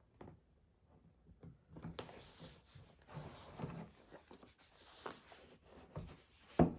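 Cardboard product box being handled and worked open: rubbing and scraping of cardboard with small taps, then a sharper knock near the end.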